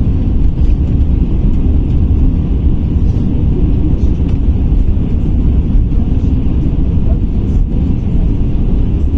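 Cabin noise inside a KamAZ-6282 electric bus under way: a steady low rumble of road and running noise.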